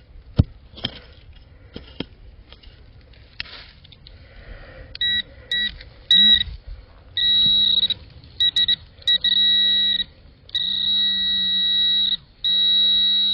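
Scrapes and clicks of digging, then from about five seconds in, electronic beeps from metal-detecting gear. They start short and turn into long steady tones with brief gaps, signalling another metal target still in the hole.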